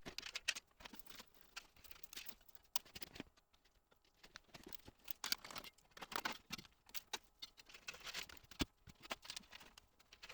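Faint, irregular clicks and rustles of cables being handled and routed inside a computer case.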